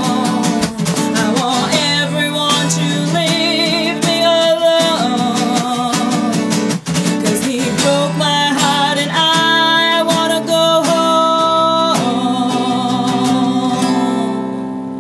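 Live bluesy song on acoustic guitar, with a lead melody of held, wavering notes between the sung lines; the music gets quieter near the end.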